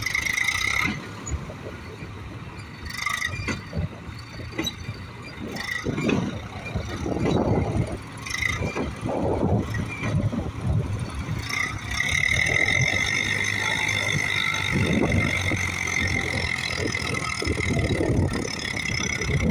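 Eicher tractor's diesel engine labouring under heavy load as it drags a loaded trolley through soft sand, surging twice as the throttle is opened. A high, steady whine joins in from about twelve seconds in and holds.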